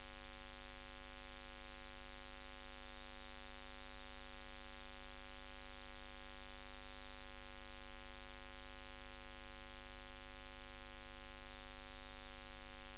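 Faint, steady electrical hum with a buzzy edge, made of many evenly spaced tones that never change; no other sound is heard.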